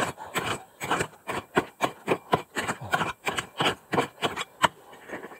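Prospecting pick hacking into rocky gravel in quick repeated strikes, about four or five a second, each a sharp crunch of metal on stones and dirt; the strikes ease off near the end.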